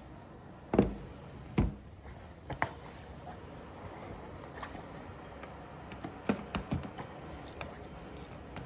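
A laptop set down on a wooden tabletop: two sharp knocks about a second in. Later, a few lighter clicks and knocks as a charger and its cable are laid on the laptop.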